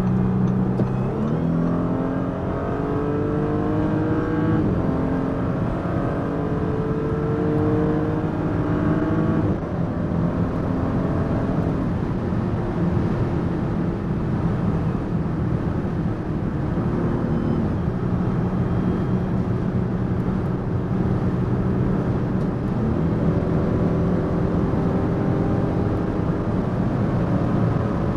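Audi SQ5 3.0 TFSI V6 engine under full-throttle acceleration, its pitch climbing through the gears with upshifts about four and nine seconds in. After that it runs at high speed with the pitch nearly steady, rising slowly again near the end.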